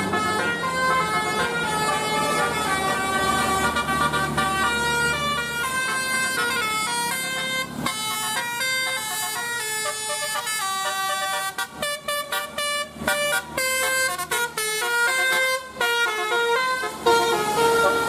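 Bus basuri telolet horn playing a melody of held notes that step from pitch to pitch. About two-thirds of the way through it turns choppy, sounding short separate notes, then holds again near the end.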